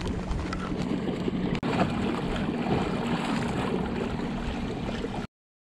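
Water washing along a moving kayak with wind on the microphone, over a faint steady hum from an electric trolling motor. The sound drops out briefly about one and a half seconds in and cuts to silence near the end.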